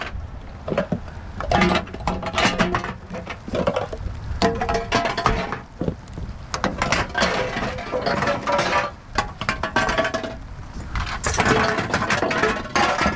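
Loose aluminium cans and metal rattling and clinking in irregular bursts as they are handled and shifted around.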